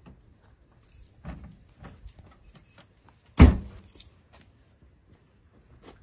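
Scattered light clinks and knocks of gear being handled, with one much louder heavy thump about three and a half seconds in.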